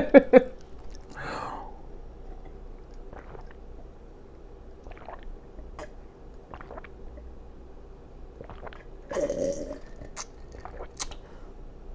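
A person chewing food with wet lip smacks: scattered sharp mouth clicks, and a brief voiced sound about nine seconds in.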